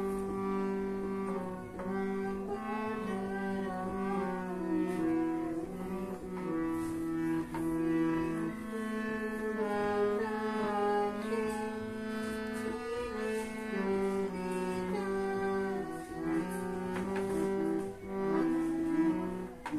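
Harmonium playing a slow melody, its reedy notes changing step by step above low notes held steadily underneath.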